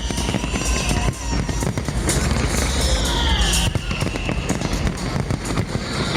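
Fireworks display: dense bangs and crackling bursts over a low rumble, mixed with music, and repeated falling whistles every second or two.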